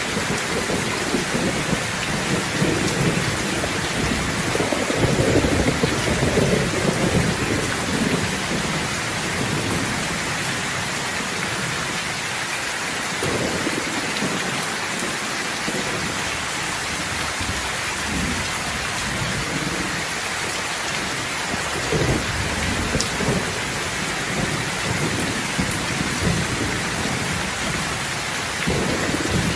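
Steady heavy rain hissing, with rolling thunder rumbling underneath. The rumble is loudest in the first several seconds and swells again briefly about two-thirds of the way through and near the end.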